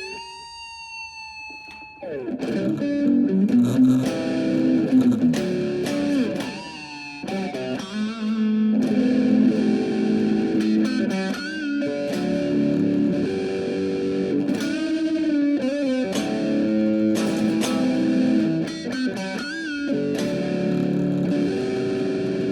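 Guitar music: a guitar melody with sustained, bent notes over held chords.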